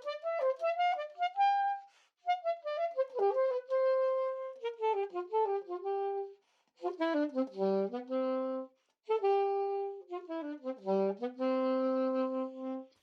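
Music: a solo reed wind instrument playing a slow melody in phrases. Each phrase ends on a held note, with short pauses between phrases.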